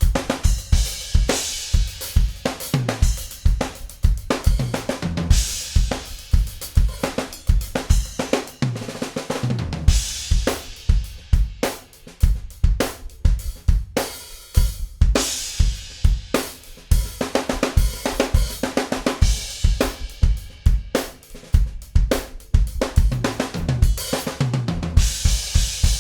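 Tama Rockstar drum kit with mahogany/basswood shells played as a full groove: kick drum, snare, hi-hat and cymbals. A few fills step down in pitch across the drums.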